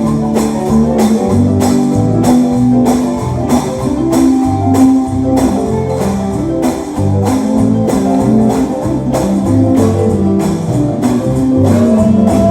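Live gospel band playing an instrumental passage: guitar chords over a bass line, driven by a steady beat. A voice begins to come in near the end.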